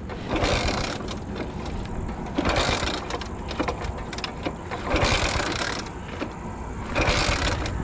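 Road traffic noise, with vehicles passing four times, each a swell of rushing tyre and engine noise.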